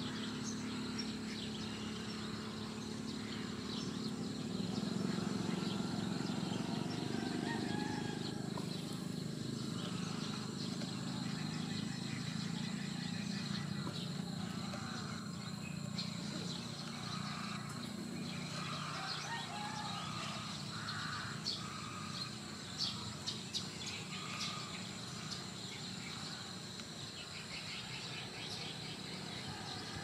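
Birds chirping and calling at a roosting egret colony, over a steady high insect drone and a low hum that is strongest in the first several seconds. A few sharp clicks come about two-thirds of the way through.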